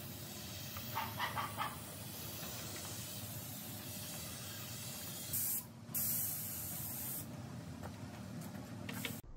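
Compressed-air gravity-feed spray gun hissing steadily as it sprays a coat of finish onto a wooden tabletop, with louder blasts of air at about five and six seconds in. A dog barks a few times about a second in.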